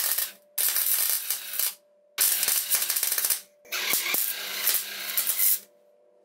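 MIG welder arc crackling in four short tack-weld bursts on steel tube and plate, each cut off suddenly, with a faint steady hum from the welder in the pauses. The welder is running low on shielding gas through a poor regulator, which is why only tack welds are being laid.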